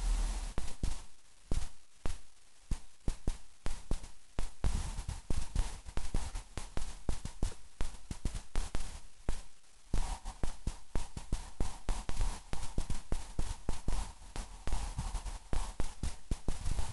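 Rapid, irregular tapping and crackling close to the microphone, several taps a second, with bursts of low rumble. It grows denser and louder about halfway through.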